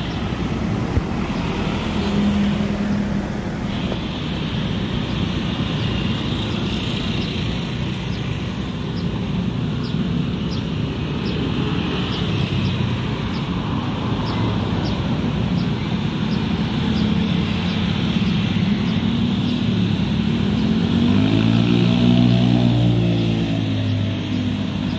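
Steady road traffic at a railway level crossing: motorcycles and cars passing. Near the end, one vehicle's engine rises and then falls in pitch as it goes by.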